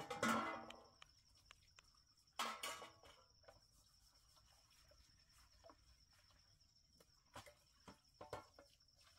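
Crickets chirping in a steady high tone. Two short pitched calls come near the start and about two and a half seconds in, and a few light clinks of dishes come near the end.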